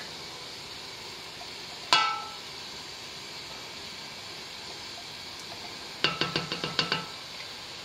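Clinks of a glass measuring cup and silicone spatula against a metal stockpot as ketchup is scraped out: one sharp ringing clink about two seconds in, then a quick run of about ten light ringing taps near the end.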